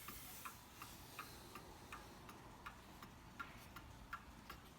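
Seth Thomas beehive mantel clock with its rebuilt original movement ticking steadily and faintly, about three ticks a second.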